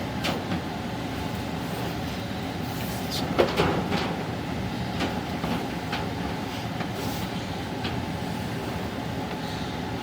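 Steady rumbling rub of a duct inspection camera's cable being drawn back through sheet-metal ductwork, with a few knocks and scrapes about three to four seconds in.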